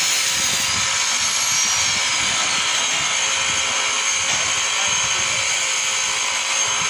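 Bench grinder running steadily with a lathe tool bit held against its abrasive wheel and being ground to shape: a constant whine under a steady high hiss.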